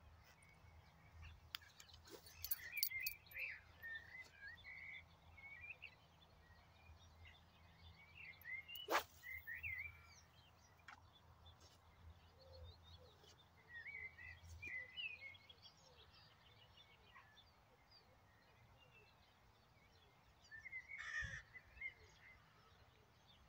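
Songbirds chirping in short phrases every few seconds over a faint low rumble, with one sharp click about nine seconds in.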